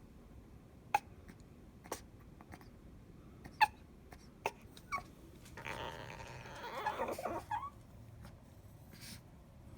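A small dog giving short, sharp yaps about a second apart, the loudest about three and a half seconds in. A longer, rougher vocal sound lasting about two seconds follows in the middle.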